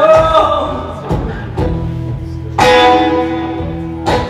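Live song on guitar and voice: a sung note at the start, then guitar chords struck a few times and left to ring.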